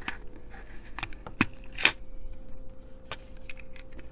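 A series of sharp plastic clicks and ticks as the circuit board is lifted out of a cheap optical mouse's plastic shell. The loudest click comes about two seconds in.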